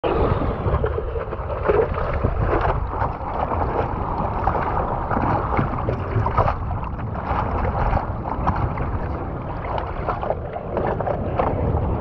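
Seawater sloshing and splashing against a surfboard right at the microphone, a continuous wash broken by irregular splashes, with wind rumbling on the microphone.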